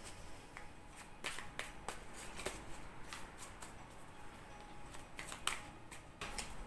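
A tarot deck being shuffled and handled by hand: irregular light clicks and flicks of the cards.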